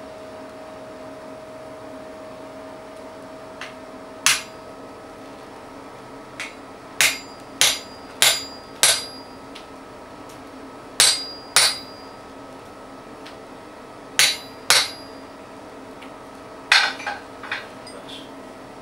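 Hammer blows on a hand-held chisel set into red-hot steel on an anvil. About a dozen sharp ringing strikes come mostly in pairs with pauses between, and end in a quick cluster of lighter taps.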